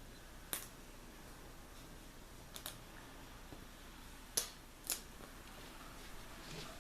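Several short, sharp clicks and ticks of a thin plastic liner as the clear top liner is peeled off a self-adhesive emblem: one about half a second in, a close pair about two and a half seconds in, and two louder ones between four and five seconds.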